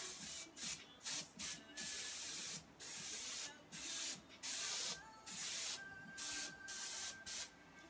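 Canned-air duster spraying in about a dozen short hissing bursts, a few lasting about a second, aimed at wet alcohol ink on a canvas.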